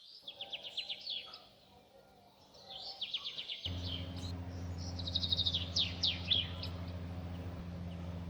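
Small birds chirping in quick high trills, in three bursts. About halfway through, a steady low mechanical hum starts and runs on under them.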